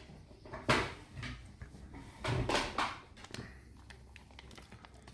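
Handling sounds as a vacuum-bagged steak and the cups weighing it down are lifted out of a sous vide water bath: a sharp knock about half a second in, then a longer clatter about two and a half seconds in, with smaller knocks between.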